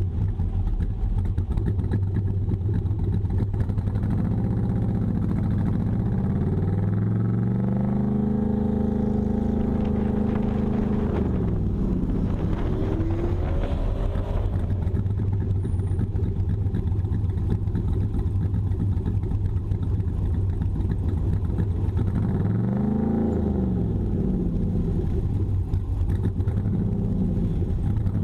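LS-swapped V8 in a vintage car on an autocross run, revving up and easing off several times over a steady low rumble, with the longest pull several seconds in and a shorter rev near the end.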